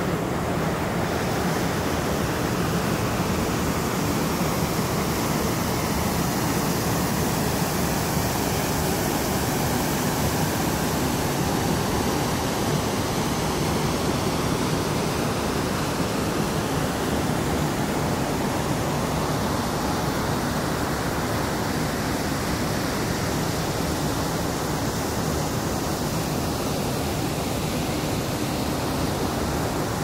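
Waterfall and river water rushing over rocks: a steady, even roar of water.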